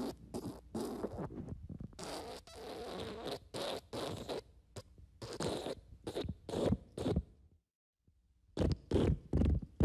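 Fart sound effects: a long run of short, sputtering fart noises, then a break of under a second near the end, then a fresh run of quick short farts.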